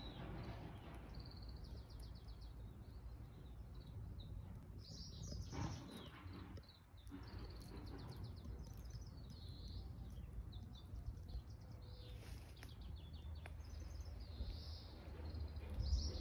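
Small birds chirping in repeated short phrases in the background, over a steady low rumble, with a louder low bump near the end.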